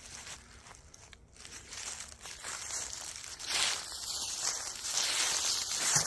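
Footsteps crunching through dry fallen leaves, a crackling rustle that grows louder after a couple of seconds.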